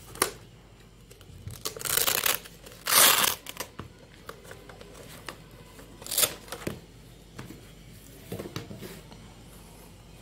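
Hook-and-loop (Velcro) fastenings of a radio's fabric protective cover ripping open as the cover is pulled off: a long rip about two seconds in, the loudest rip about three seconds in, and shorter rips and rustling later.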